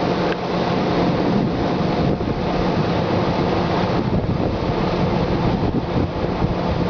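Thunderstorm wind buffeting the microphone: a steady rushing roar with flickering low gusts, and a faint steady low hum underneath.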